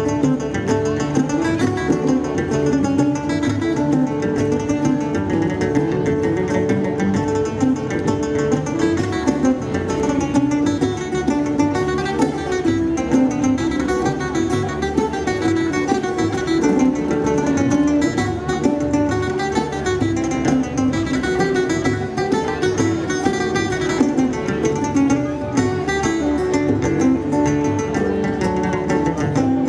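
Live instrumental folk band playing with no singing: banjo and acoustic guitar strumming a fast tune over a didgeridoo drone, electric bass and a bodhrán frame drum.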